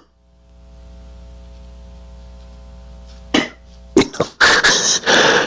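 A man coughing several times, loud and close, starting about three seconds in; before that only a faint steady hum.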